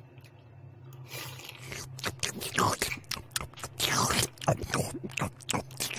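Raw anchovy kinilaw being eaten close to the microphone: irregular chewing sounds begin about a second in, with a metal spoon scraping on a plate.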